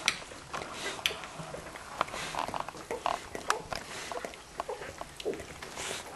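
Week-old Australian Kelpie puppies grunting and squeaking as they nurse, in many short calls, mixed with snuffling and licking from the mother nosing them and scattered small clicks.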